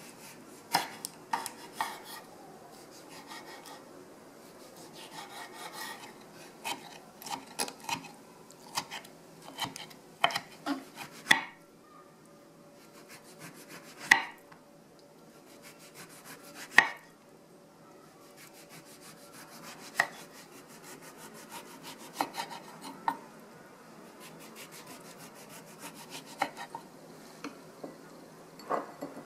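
A chef's knife slicing a tomato and then an orange on a wooden cutting board. Soft rasping cuts through skin and flesh are broken by irregular sharp knocks of the blade meeting the board, the loudest few about halfway through.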